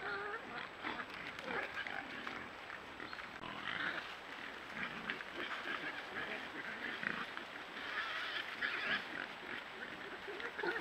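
A sounder of wild boar foraging through dense undergrowth: grunting and short higher calls mixed with a steady crackle of trampled vegetation, louder in clusters about four seconds in and again near the end.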